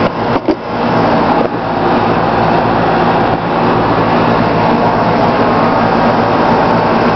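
High-voltage arc from a pole-mounted distribution transformer ("pole pig") burning at a capacitor: a loud, steady buzzing crackle with a hum running through it, cutting off abruptly at the end.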